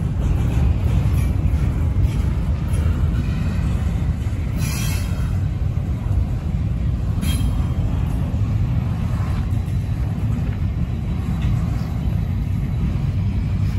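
CSX double-stack intermodal freight train rolling past close by: a steady low rumble of well-car wheels on the rails. Two brief sharp high sounds come about five and seven seconds in.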